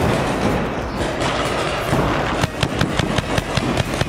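Paintball markers firing: scattered sharp pops, with a quick string of them about two and a half seconds in, over a steady noisy background.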